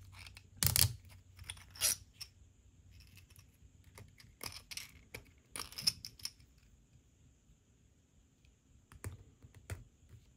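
Hard 3D-printed plastic parts clicking and scraping in the hands as a tight-threaded screw piece is twisted against its tube and pulled apart. The clicks are sharp and scattered, loudest about a second in and around six seconds.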